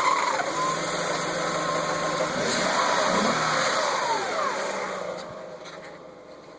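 BMW 750iL V12 running while the ZF 5HP30 automatic transmission's steady high whine, present in gear, drops away within the first half second as the selector goes into neutral. The engine runs on, swelling and then falling away after about four seconds.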